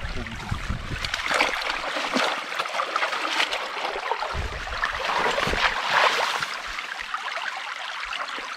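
Small stream babbling and trickling over stones, with some wind rumble on the microphone in the first couple of seconds.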